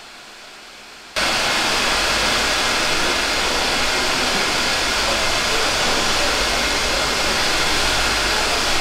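A steady, even rushing noise that cuts in abruptly about a second in and then holds unchanged.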